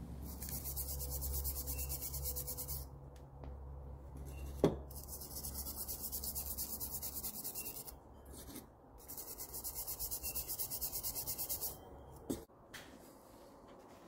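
A stiff brush scrubbing a small steel bike part, working off rust loosened by an overnight soak in white vinegar: three runs of quick back-and-forth strokes, about five a second, with short pauses between. A sharp tap comes about a third of the way in, and another near the end as the scrubbing stops.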